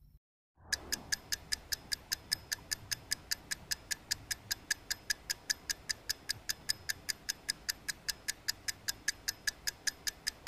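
Ticking-clock sound effect, a rapid, even tick about five times a second over a faint low rumble, marking time passing while the water heats. It starts after a moment of dead silence.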